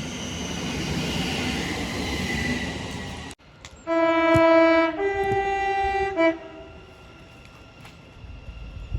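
A train runs past with a steady rumble, then after an abrupt cut a two-tone train horn sounds: a lower note for about a second, a higher note for about a second, and a short blip of the lower note to finish.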